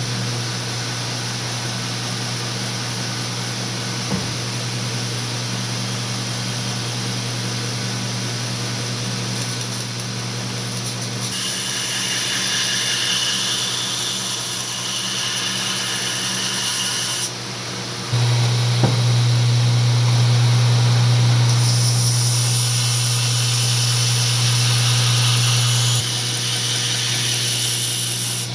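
Power grinder running steadily while a steel san mai knife blade is ground on it. A harsher, higher grinding hiss comes in twice, from about 11 to 17 seconds and from about 22 to 26 seconds, as the steel is pressed against the abrasive. The motor's hum gets louder about two-thirds of the way through.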